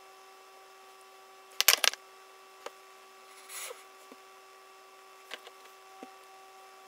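Small clicks and taps of makeup brushes and products being handled and set down, a quick cluster of them about one and a half seconds in and a few single ones later, over a faint steady electrical hum.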